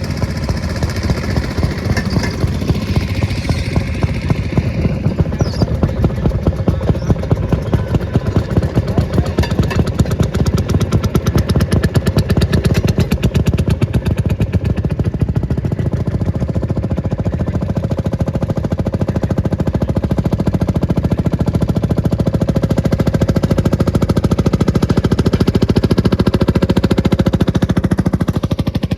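A large engine running steadily with a fast, even pulse and a low rumble, growing slightly louder later on.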